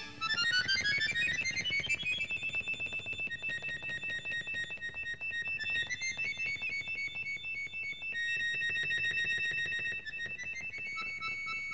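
Piano accordion playing solo in its high register: a fast rising run of notes, then rapid repeated high notes over held tones, with no band behind it.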